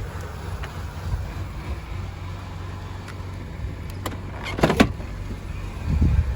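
GM 3800 V6 idling with a steady low rumble. Its idle hunts up and down, which the owner puts down to the ignition. A brief clatter sounds a little past halfway.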